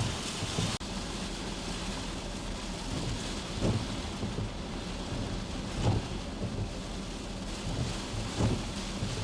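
Hurricane wind buffeting the microphone in low rumbling gusts every couple of seconds, over a steady rush of wind and rain.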